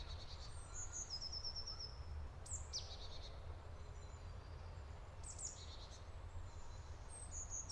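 Faint woodland ambience: small birds giving thin high chirps, a quick trill about a second in and short downward-sliding calls a few times after, over a low steady rumble.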